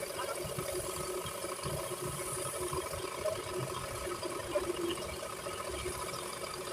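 A steady mechanical whir holding several constant tones over a low, fluttering rumble.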